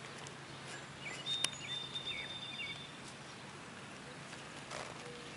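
A bird calling for about a second and a half, starting about a second in: a held high whistle with a few short chirps under it. A sharp click falls in the middle of the call and a soft rustle comes near the end, over a faint steady low hum.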